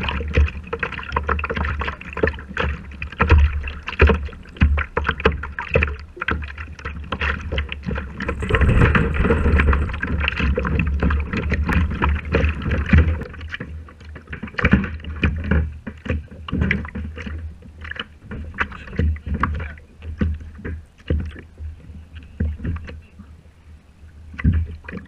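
Water slapping and splashing irregularly against the hull of a plastic fishing kayak, heard close up, over a steady low rumble of wind on the microphone.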